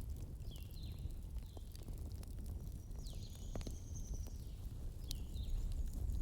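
Wood fire burning in a fireplace: a steady low rumble with scattered sharp crackles and pops, and a few faint high chirps and whistles.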